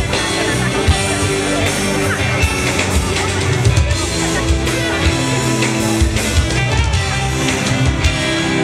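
Pop-rock band playing live through a PA, drums and guitar over steady sustained chords, heard from among the audience.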